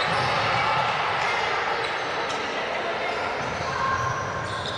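Echoing sports-hall ambience: indistinct voices of players and people around a volleyball court, with general bustle of movement on the court.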